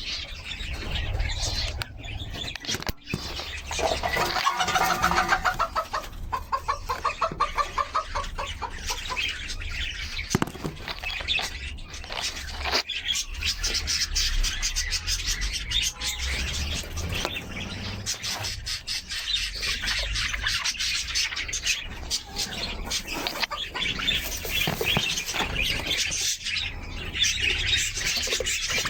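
Many small cage birds chirping and twittering together, with a louder run of fast repeated calls a few seconds in and a few sharp knocks.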